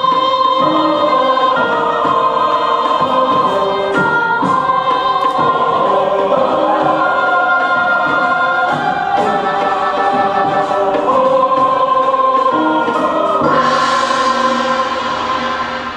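Music with sustained choral singing, held notes shifting in pitch over a slow line. About three seconds before the end, applause breaks out over the last of the music, which then fades away.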